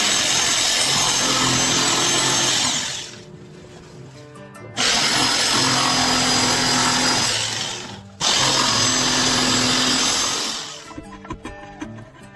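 Electric jigsaw sawing through a wooden board in three runs of about two to three seconds each, with short pauses between; the last run stops a second or so before the end.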